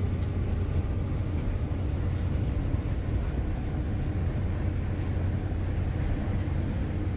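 Engines of a fast passenger ferry running steadily at cruising speed, heard from inside the cabin: a deep, even drone with a rushing hiss of water and spray along the hull.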